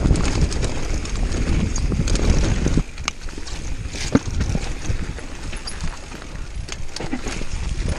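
Mountain bike ridden fast down a dirt singletrack: wind noise on the microphone and tyre rumble, which cut off suddenly about three seconds in. A quieter stretch follows, with scattered clattering knocks as the bike rolls over rough ground through brush.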